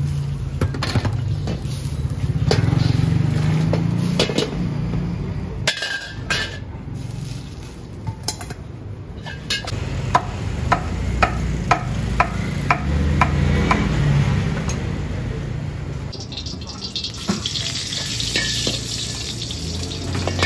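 Metal ladle and wire strainer clanking in a wok of boiling water over a gas burner. A cleaver then chops crispy pork on a wooden chopping board, about two chops a second for a few seconds. Near the end, oil sizzles in the hot wok as sliced onion goes in.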